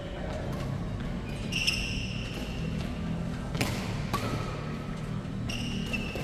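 Badminton rally: sharp cracks of racket strikes on the shuttlecock, two of them close together past the middle, and shoes squeaking briefly on the wooden court floor, over a steady low hum.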